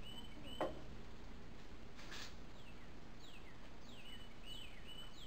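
A songbird calling outdoors: short whistles and, from about three seconds in, a run of quick down-slurred whistles, over a steady low background hiss. A sharp tap about half a second in and a brief rustle about two seconds in come from the cooking at hand.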